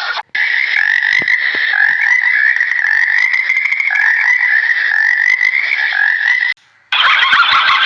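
A chorus of frogs calling, a dense, fast trill that keeps going. It cuts off about six and a half seconds in, and a different, busier animal chorus starts a moment later.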